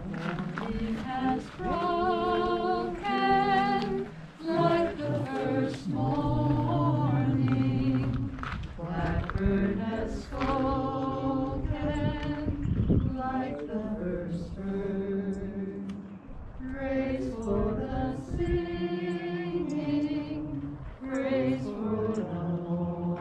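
Unaccompanied singing, a slow melody of long held notes with vibrato.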